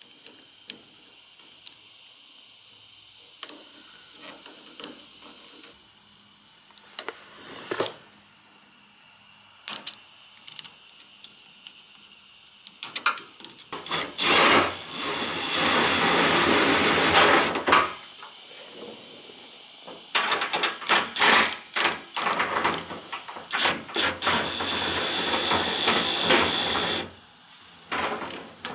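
Small clicks of a hand screwdriver tightening a hose clamp, then a DeWalt 20V cordless impact driver hammering in long rattling runs from about halfway through, driving the bolts that hold a new gas tank up.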